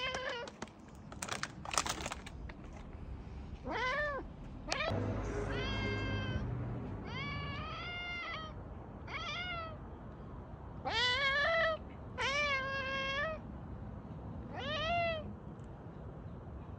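Domestic cat meowing repeatedly, about seven meows a second or two apart, many rising and then falling in pitch. A few sharp clicks come about a second or two in.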